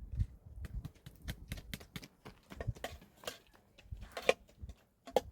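Irregular light clicks and taps, several a second, with a louder knock about four seconds in.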